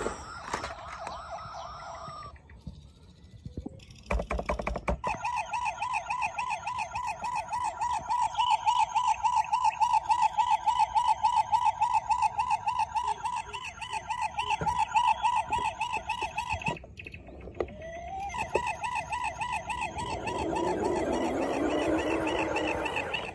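Toy police car's electronic siren, a rapid warble at a steady pitch. It cuts out about 17 seconds in and starts again a second later.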